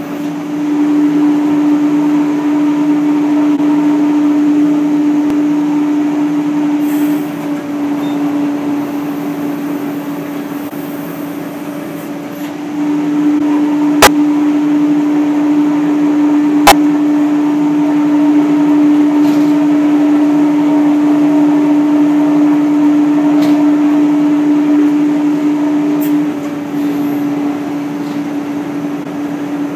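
Fiber opening machine running with a steady motor hum while loose waste fiber is fed in. The hum drops quieter for a few seconds twice and comes back. Two sharp clicks sound a few seconds apart midway.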